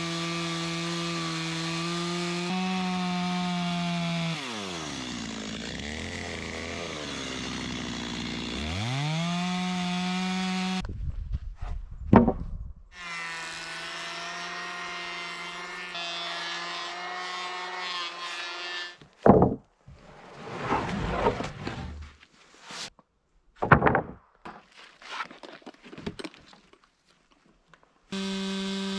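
Two-stroke chainsaw ripping a pine board lengthwise. Its pitch sinks as the saw bogs in the cut and then climbs back. After a break a handheld power planer runs steadily and then shaves the board in short, uneven passes, and a steady engine tone returns near the end.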